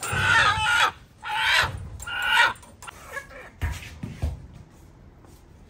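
A desi rooster gives three loud, harsh alarm squawks as it is grabbed by hand, then a couple of soft thumps follow.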